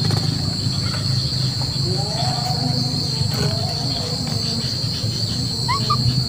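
Steady high-pitched insect drone over a constant low rumbling hum, with a few faint short calls in the middle and two brief rising chirps near the end.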